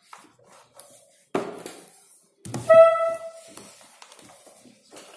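Sheets of printed paper rustling as they are handled and flipped, with a short sudden rustle about a second and a half in. Just after halfway a loud, steady, buzzy tone sounds for about a second and stops.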